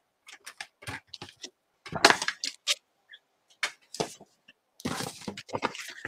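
Cardstock being cut on a paper trimmer and handled: a run of short clicks and scraping rustles, with a sharper burst about two seconds in and a longer rustle about five seconds in.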